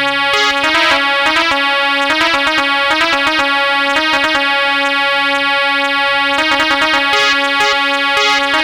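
Electronic keyboard playing a melodic interlude of short notes over a steady held drone note.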